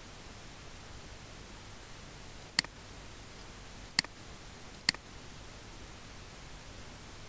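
Three sharp computer mouse clicks, the second and third closer together, over a steady low hiss.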